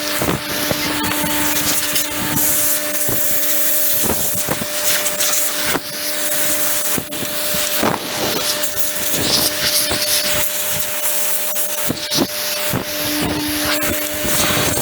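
Compressed-air blow gun hissing in repeated blasts as dust and chaff are blown out of a baler, the hiss swelling and dipping as the nozzle is moved, with a rotary vane air compressor humming steadily underneath.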